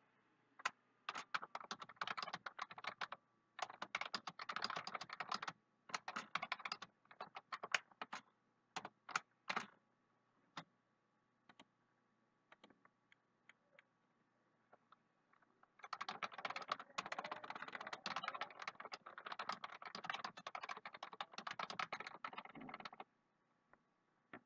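Typing on a computer keyboard: quick runs of key clicks for a few seconds at a time, then several seconds of only scattered single keystrokes, then a long fast run of typing that stops about a second before the end.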